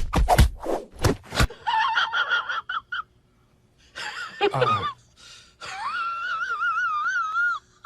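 A run of quick knocks and rustles, then a cat meowing: a short wavering meow, a meow that falls in pitch, and a long drawn-out yowl that wobbles up and down in pitch.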